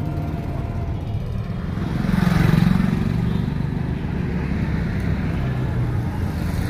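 Steady road-traffic rumble, with a vehicle passing about two seconds in, louder for a moment before fading back.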